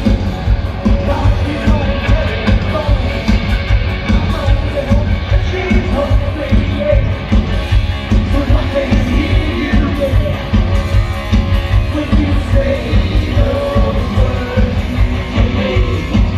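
Live rock band playing a loud glam-metal song, the lead singer singing over drums, bass and electric guitar. The low end is heavy and boomy with a pulsing beat.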